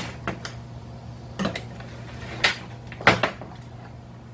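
Brush cutter engines and metal parts knocking and clunking against a metal workbench as they are handled, several separate knocks at uneven intervals, over a steady low hum.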